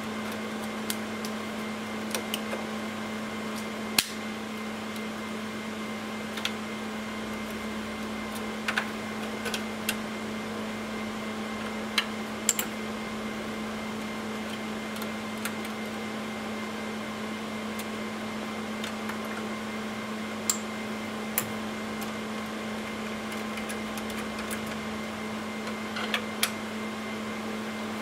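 Scattered sharp clicks and clacks of cable connectors being unplugged and a screwdriver working on the metal brackets of a server rack. A steady, even machine hum runs underneath.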